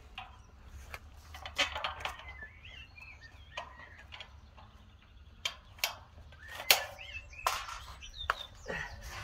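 Scattered sharp clicks and knocks of metal satellite dish parts being handled as a bolt is fitted through the LNB arm bracket, the loudest knock about six and a half seconds in. Birds chirp now and then.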